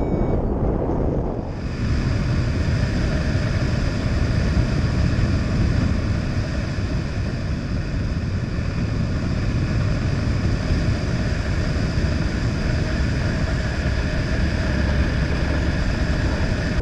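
Loud, steady rush of wind over the microphone of a hang glider's camera in flight, with faint steady whistling tones above it. It starts suddenly about a second and a half in; before that, the last short beep of a flight variometer.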